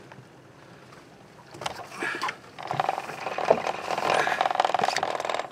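Quiet at first, then close rubbing and handling noise that grows loud about halfway through, dense and scratchy with fine rapid crackle, as the sea bass is held right up against the camera's microphone.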